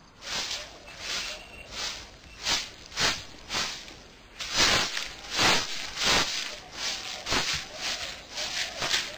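A long-handled broom sweeping a bare-earth yard: a steady series of scratchy swishes, about two strokes a second.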